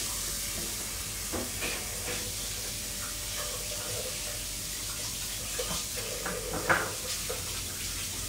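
A tap running steadily into a sink as hands are washed, with a few light clinks and one sharper knock about two-thirds of the way through.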